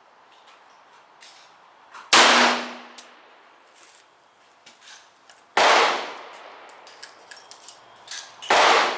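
Three shots from a .44 Special single-action Bisley revolver, fired slowly about three seconds apart, each with a short echoing tail. Fainter clicks fall between the shots.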